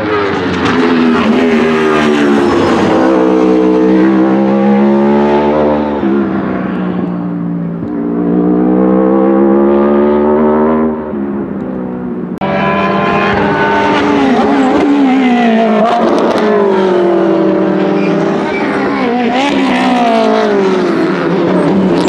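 Race car engines at full throttle, the pitch climbing high and dropping sharply at each upshift. The first half is the Wolf GB08 prototype's Aprilia motorcycle-derived engine accelerating along the straight. About halfway through, the sound cuts abruptly to other race cars accelerating and shifting through a corner.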